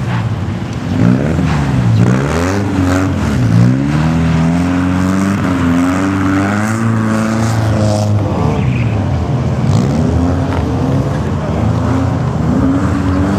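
BMW E30 318is's 1.8-litre four-cylinder engine revving hard as the car slides through the turns on ice, its pitch climbing and dropping several times as the driver works the throttle and gears.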